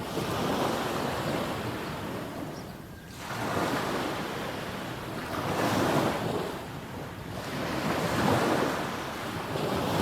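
Small sea waves breaking and washing up a sandy beach, the surf swelling and falling back every two to three seconds.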